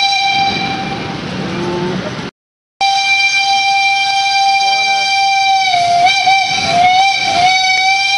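Steam locomotive whistle blowing a long, steady blast. It cuts out for a moment about two seconds in, then sounds again, wavering in pitch near the end.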